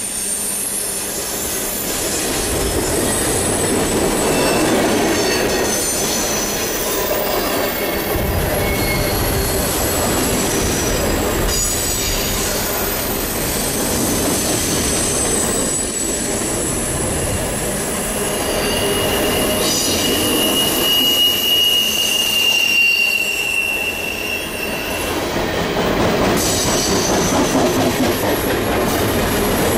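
Long CN freight train rolling past, its railcar wheels squealing over a steady rumble and clatter. Near the middle a single high squeal holds for several seconds.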